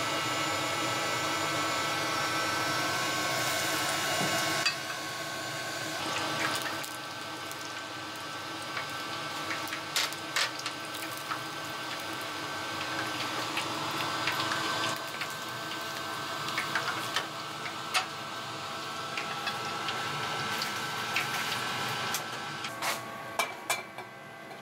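Kakiage fritters deep-frying in a wok of hot oil: steady sizzling and bubbling over a steady hum, louder for the first few seconds, with a few sharp clicks.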